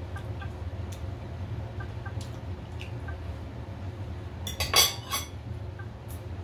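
Cutlery clinking against plates and dishes, with a quick cluster of sharp clinks nearly five seconds in, over a low steady hum and a few faint ticks.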